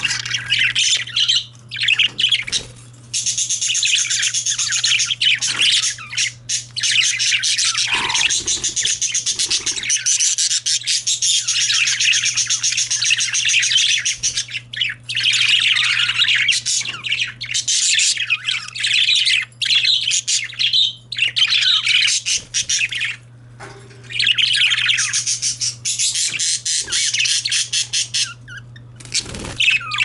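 Several male budgerigars warbling and chattering, a dense high-pitched run of rapid chirps and clicks that carries on almost without a break, with only a few short pauses.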